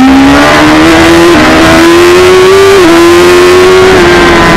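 Suzuki GSX-R1000 superbike's inline-four engine running loud at high revs under acceleration, its pitch climbing with two brief dips about one and a half and three seconds in, then holding steady, with wind noise on the bike-mounted microphone.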